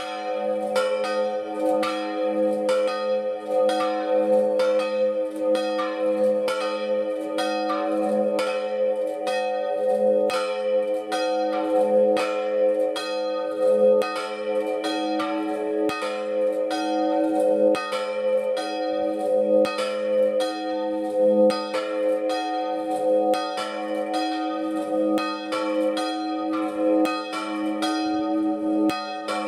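Two small church bells cast by the Marinelli foundry of Agnone, swung in a full peal ('distesa'). Their strokes overlap in a continuous, loud ringing. The second bell has a large crack that spoils its tone.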